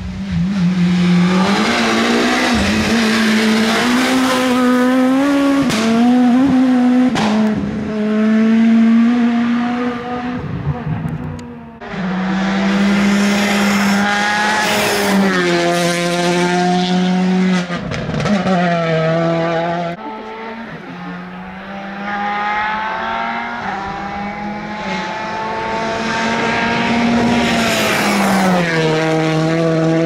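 Rally car engine at full attack, its pitch climbing and dropping over and over through gear changes and braking into bends, with sharp cracks in between. There are several passes, each starting off quieter and then running loud.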